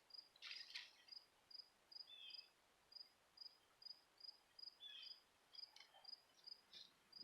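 A cricket chirping faintly and steadily, about two to three short high chirps a second. A few brief scratchy rustles from handling soil and potatoes come near the start and again about five seconds in.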